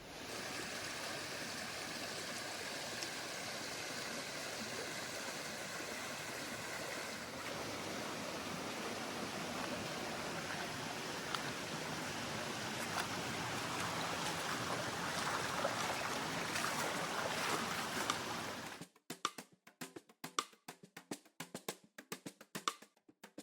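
Steady rush of falling or flowing water, a waterfall or stream. About nineteen seconds in it cuts off suddenly and percussive music with sharp drum hits takes over.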